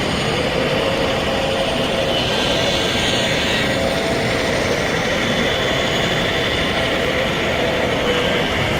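Steady background din of a large, busy exhibition hall, an even roar with faint indistinct voices in it.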